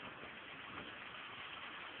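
Steady rainfall, an even hiss.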